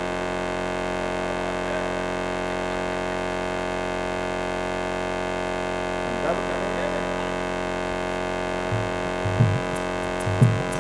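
Harmonium holding a steady sustained chord. Near the end, drum beats start up in a rhythm, joined by a few jingling strikes.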